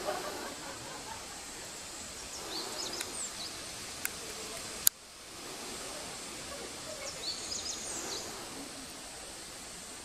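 Outdoor ambience: a steady hiss with birds chirping in two short clusters, about two and a half seconds in and again about seven seconds in. A sharp click just before five seconds.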